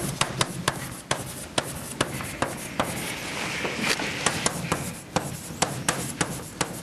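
Chalk writing on a blackboard: a quick run of taps and short scratching strokes, with a longer scrape about three to four seconds in.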